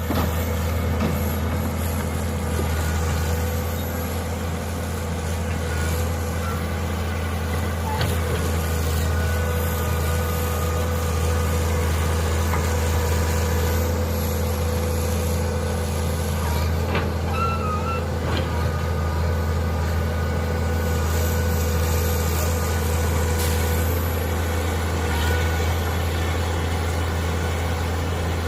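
Mini excavator's engine running steadily while digging, a constant low drone with a steady higher whine above it.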